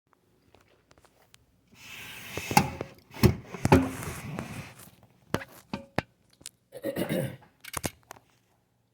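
Rustling and scraping with a series of sharp knocks and taps as things are handled and set down, in two bursts of activity with pauses between.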